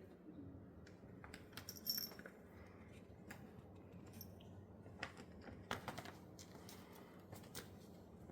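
Faint scattered clicks and taps of a cat batting at a toy on the floor, with a brief metallic jingle about two seconds in.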